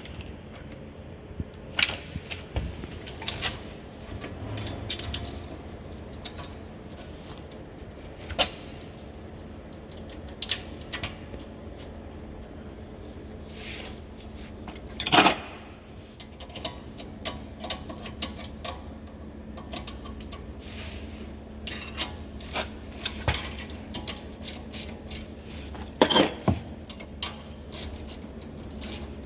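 Scattered metallic clinks and knocks of hand tools and brake parts being handled while a car's rear brake caliper is refitted, with two louder knocks about fifteen seconds in and again near the end.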